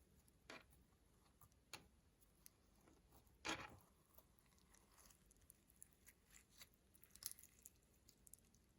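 Slime being squished and mixed by hand: a few soft, sticky squishes and small clicks, the loudest about three and a half seconds in.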